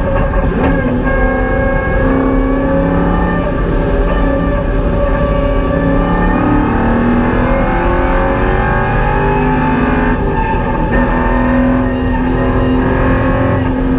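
Holden VY Commodore's LS1 V8 engine running hard, heard from inside the cabin, its note rising and falling with throttle and gear changes, with a brief dip about ten seconds in.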